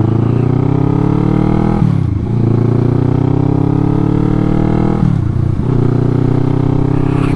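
2009 Kawasaki ER-6n's parallel-twin engine accelerating away from a stop. Its pitch climbs, drops at an upshift about two seconds in, climbs again, and drops at a second upshift about five seconds in. The rider finds these gear changes not quite as crisp as he'd like.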